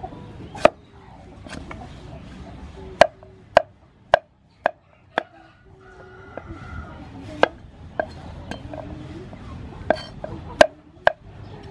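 Steel cleaver chopping green papaya on a wooden chopping board: about a dozen sharp knocks of the blade striking the board at irregular intervals, often two or three close together.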